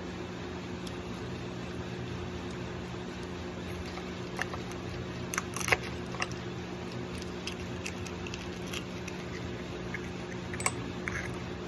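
Metal spoon clicking and scraping against a balut eggshell and ceramic egg cup, a few small taps with the sharpest about six seconds in, then a short crackle of eggshell being peeled near the end, over a steady low hum.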